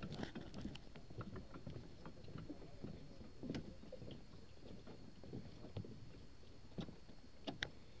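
Light, irregular knocks and clicks over a low rumble: footsteps and camera handling of someone walking along a floatplane dock.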